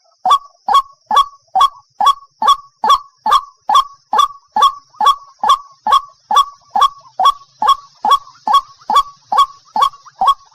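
White-breasted waterhen (ruak-ruak) repeating a single short call over and over, about two calls a second, each note dropping sharply in pitch, with a faint steady high hiss behind it.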